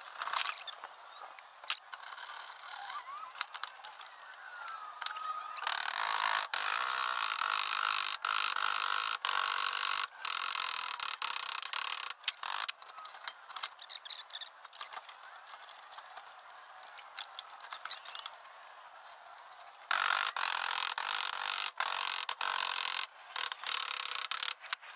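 A cordless drill bores into a stainless steel plate in two long stretches of steady, high squealing noise. Sharp metallic taps and knocks come in between.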